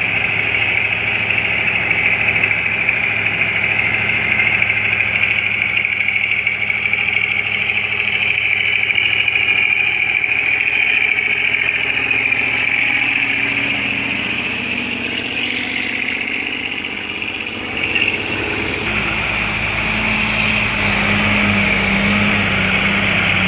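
Heavily loaded diesel trucks labouring uphill: one truck's engine note shifts up and down as it passes close, and a steady low engine drone takes over in the last few seconds. A constant high-pitched hiss runs underneath.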